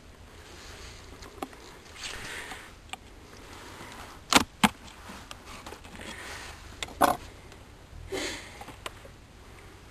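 Handling noises: soft rustling with a few sharp knocks, two close together about four and a half seconds in and another near seven seconds.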